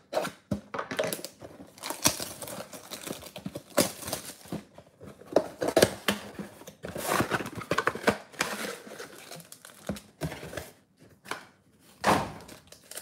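Cellophane shrink wrap crinkling and tearing as it is stripped off a sealed trading-card mega box, then rustling as the cardboard box and its insert are opened. Irregular crackles run throughout.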